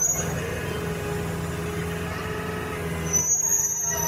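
Hydraulic excavator's diesel engine running steadily with a low hum, and a high thin whine joining about three seconds in.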